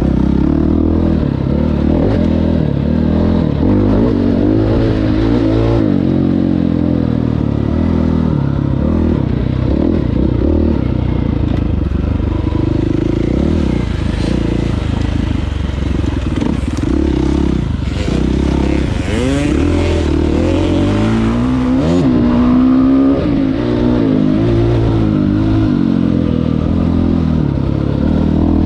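Dirt bike engine running hard on a trail, its pitch rising and falling as the throttle is worked and the gears change, with a few sharp rising revs late on.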